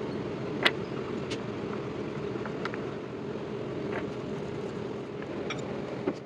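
A spoon clicking and scraping against a glass bowl while stirring a thick coconut and condensed-milk mixture: a few light, sparse clicks over a steady low hum.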